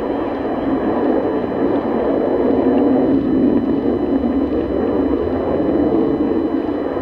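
Distant Sukhoi Su-30 fighter's twin turbofan engines as it manoeuvres overhead: a steady, loud rumble that swells slightly around the middle.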